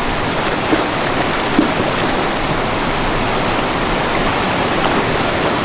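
Loud, steady rush of fast-flowing mountain stream water.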